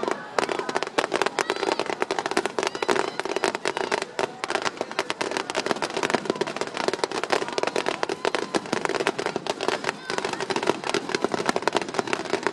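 Fireworks finale barrage: aerial shells and ground-level fountains going off in a dense, unbroken stream of bangs and crackles, many each second.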